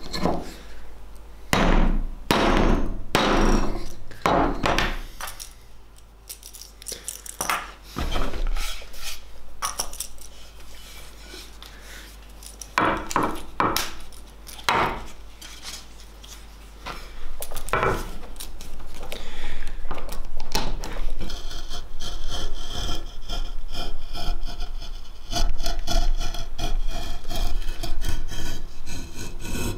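Hand tools scraping and rasping a wooden hatchet handle in repeated strokes. The strokes are irregular and spaced apart at first, then become a close, continuous run of scraping for the last third as a small blade shaves curls off the handle.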